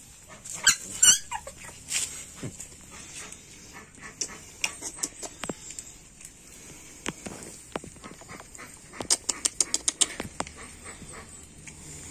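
Village-dog puppies giving two short high yips about a second in, then small scuffling clicks as they move about, with a quick run of about eight clicks around nine seconds in.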